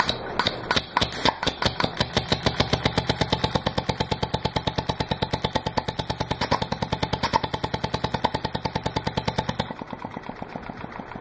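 Small two-stroke weed-eater engine converted to run on compressed air through a reed-switch-timed solenoid valve, puffing and clicking with each stroke. It picks up speed over the first couple of seconds, runs at a steady rhythm of about eight beats a second, then weakens and slows near the end.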